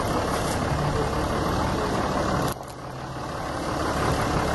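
Steady running engine and motion noise of a slowly driven vehicle. The sound drops suddenly a little past halfway through, then builds back up gradually.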